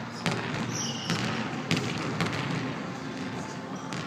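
Basketball dribbled on a hardwood gym floor: about four sharp bounces, unevenly spaced, in the first couple of seconds.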